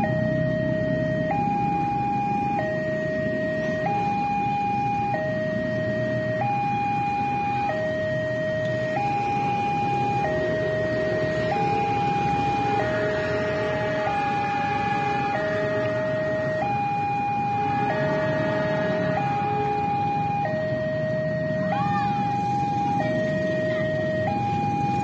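Railway level-crossing warning alarm from the crossing's loudspeaker: a loud, steady two-tone hi-lo tone that switches between a higher and a lower pitch about every 1.3 seconds, sounding while the barrier is down for an approaching train.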